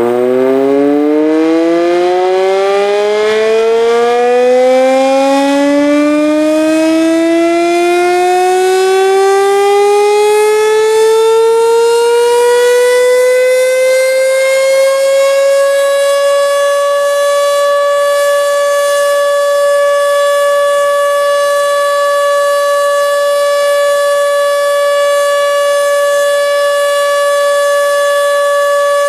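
Sentry 14V outdoor warning siren sounding a test, winding up from a low pitch. The pitch rises steadily for about sixteen seconds, then holds one steady tone at full speed.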